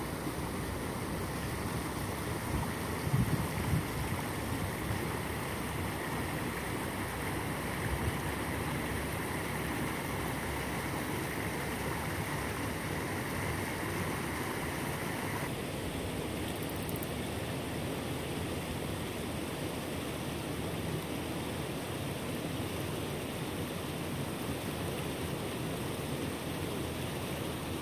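Water pouring over a low concrete spillway into a river: a steady rushing that thins slightly about halfway through. A few low bumps about three seconds in.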